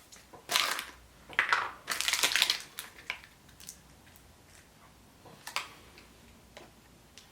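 Crinkling and crackling of a Chupa Chups surprise egg being unwrapped and broken open, in several bursts over the first three seconds, followed by a few faint clicks.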